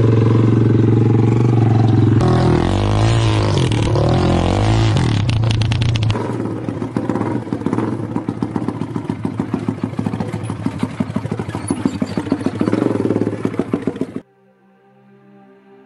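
Small engine of a mini rock crawler running, its pitch rising and falling as it is revved, then running at low revs with a quick, even beat as the crawler works over rock. It cuts off suddenly near the end.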